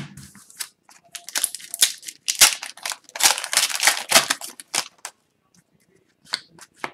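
Foil wrapper of an Upper Deck hockey card pack being torn open and crinkled, a dense crackling that lasts a few seconds, followed by a few sharp clicks near the end.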